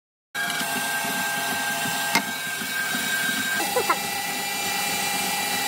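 Small electric kitchen appliance motor running steadily with a whine. It cuts in abruptly, there is a click about two seconds in, and its tone drops to a lower steady pitch about three and a half seconds in.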